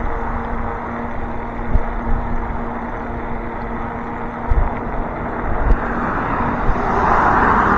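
Strong gusty wind buffeting the microphone of a moving e-bike, with low rumbles and a faint steady hum underneath. A passing vehicle's noise swells up near the end.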